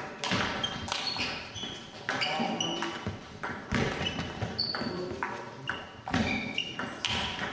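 Table tennis rally: the celluloid ball clicking off bats and the table in an irregular patter of sharp knocks, ringing in a large gym hall.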